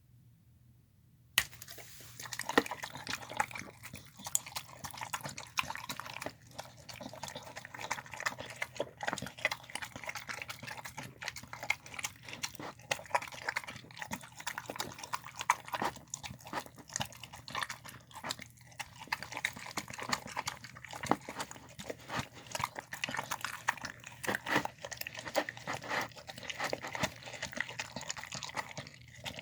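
A dog eating a meal of chicken, apple, white beans and rice: a dense, steady run of chewing and smacking that starts suddenly about a second and a half in.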